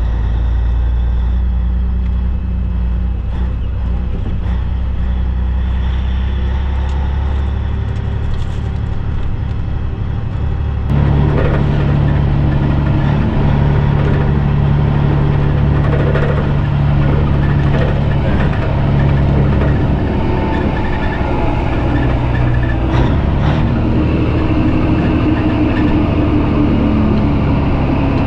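Peterbilt cabover semi truck's diesel engine running steadily as the truck drives slowly. It is heard inside the cab at first, then from outside behind the cab, louder, from about eleven seconds in.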